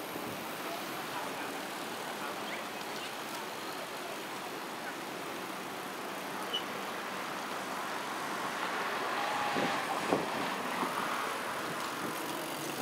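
Steady road noise from a large group of bicycles riding past, a continuous hiss of tyres and traffic, with faint voices and a few light knocks from about nine seconds in.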